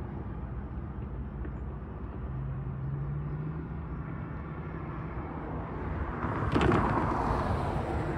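Roadside outdoor background of distant road traffic rumble, with a low steady engine hum for a couple of seconds in the middle and a louder rough rush of noise swelling up near the end.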